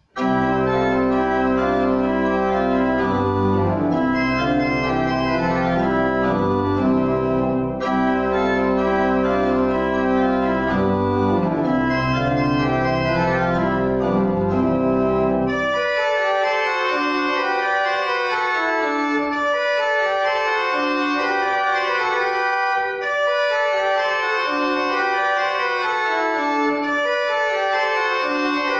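Church pipe organ playing the postlude. Full sustained chords over low pedal bass notes give way, just past halfway, to lighter moving lines in the upper range without the bass.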